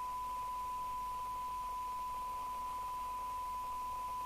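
Steady single-pitch test tone from a Danita Mk5 FM CB radio's loudspeaker, the receiver demodulating a tone-modulated carrier from a signal generator set to its channel, as fed in for a SINAD receive-sensitivity check. Light hiss lies under the tone.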